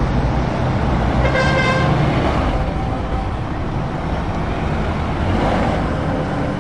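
Diesel engine of a DAF XF tractor unit running as the truck drives past, with a horn tooting once, briefly, about a second and a half in.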